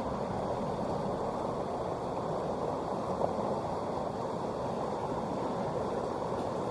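Mountain stream water rushing over rocks: a steady, unbroken noise that holds the same level throughout.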